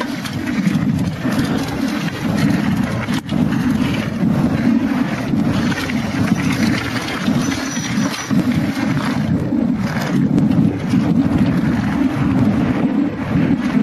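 Wind buffeting the microphone and the clatter of a downhill mountain bike rattling over a rough trail at speed, with a sharp knock about three seconds in.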